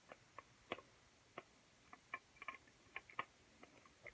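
Faint, irregular small clicks and ticks, about fifteen scattered through, from a battery-powered Thomas & Friends Whiff toy engine running on plastic toy track.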